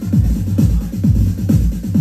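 Live techno from a Roland TR-8S drum machine and KORG minilogue synthesizer: a steady four-on-the-floor kick a little over two beats a second under deep bass notes that fall in pitch.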